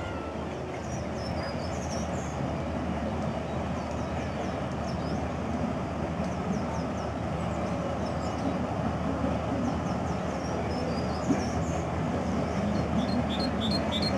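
Steady low rumble and churning of passing paddle steamers on the river, with short high bird chirps over it and a quick run of chirps near the end.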